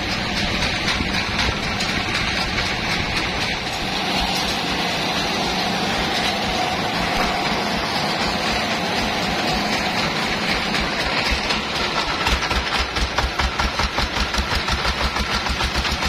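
Band sawmill machinery running with a steady engine-like drone; about twelve seconds in, a rhythmic low thumping of roughly five beats a second joins it.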